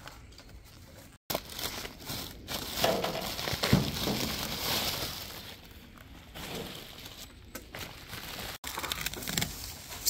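Plastic packaging and bubble wrap crinkling and rustling as parts are handled and unwrapped, loudest in the middle, broken by two brief cuts to silence.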